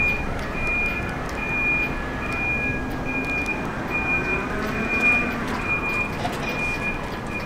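Warning beeper sounding a steady series of short, high beeps, about ten of them, evenly spaced at roughly one every three-quarters of a second. Under it is the low rumble of a stainless-steel R211A subway car rolling slowly past on street track.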